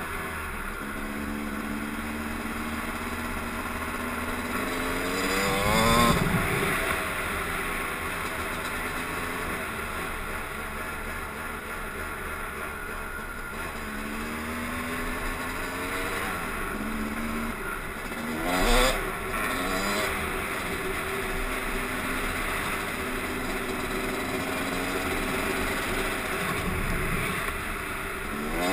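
Yamaha YZ250 two-stroke dirt bike engine running under way, revving up sharply three times: about six seconds in, about nineteen seconds in and at the very end.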